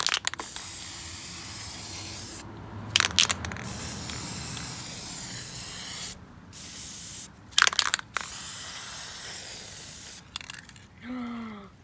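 Aerosol spray paint can hissing in about four long bursts of one to three seconds each, with brief gaps between them. A few sharp clicks, the loudest sounds here, fall between the bursts.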